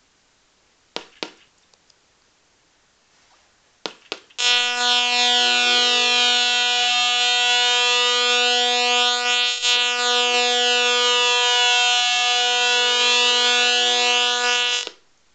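Velleman MK170 LED star kit's electronic sound effect: a loud, buzzy, siren-like warbling tone that starts about four seconds in, lasts about ten seconds and breaks briefly near the middle. A few small clicks come just before it.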